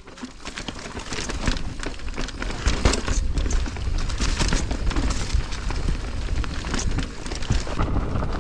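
Mountain bike riding down a rough downhill trail: tyres rolling over dirt and rocks, and the bike rattling with many sharp knocks. A steady low rumble of wind and bumps runs across the camera microphone throughout.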